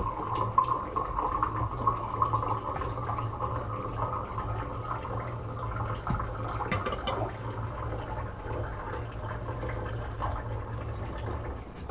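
Steady stream of running water, a trickling splash that sounds like pee. It runs evenly and stops near the end.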